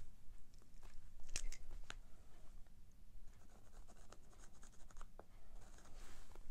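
Frixion marking pen drawing a line on fabric along a clear ruler: faint scratching of the pen tip on the cloth, with a few light ticks.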